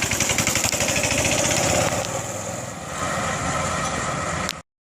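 Mini baja minibike's single-cylinder 212 cc small engine running with a fast, even pulse under throttle. It eases back to a lower, steadier note about two seconds in. The sound cuts off abruptly near the end.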